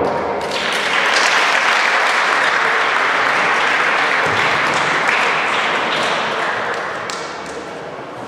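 Audience applauding as the music stops, the clapping beginning about half a second in and slowly dying down toward the end.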